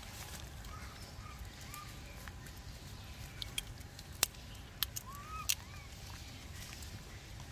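Faint outdoor background with a low rumble, where a baby macaque is eating peanuts: a few short, sharp cracks of peanut shells being bitten, clustered between about three and a half and five and a half seconds in, and a few faint short chirps.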